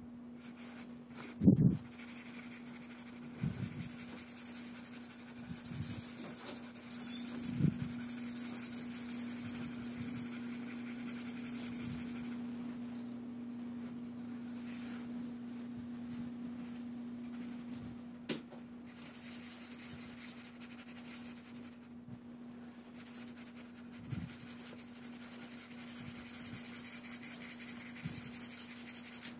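Red felt-tip marker rubbing across paper as it colours in, over a steady low hum, with a few soft thumps, the loudest about a second and a half in.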